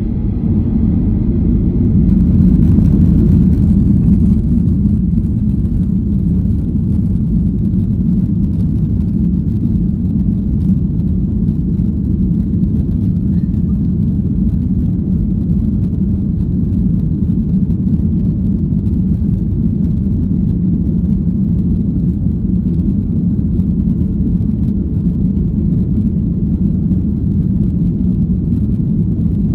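Steady low cabin rumble of a Boeing 737-800 taxiing, its CFM56 engines at low power with wheel and airframe noise, swelling slightly a few seconds in and then holding level.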